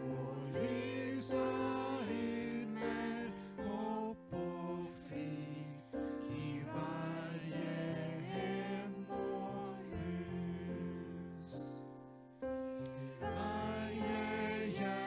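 A small group of voices, men's and girls', singing a Swedish Christmas hymn into microphones to electronic keyboard accompaniment, with brief breaths between phrases.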